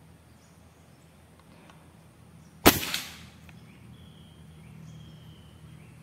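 A single shot from a scoped hunting rifle: one sharp crack about two and a half seconds in, dying away over about half a second.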